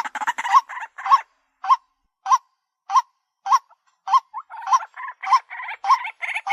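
White-breasted waterhen calling: a steady series of hoarse, rising notes, a little under two a second, with rougher chattering between the notes at the start and again toward the end.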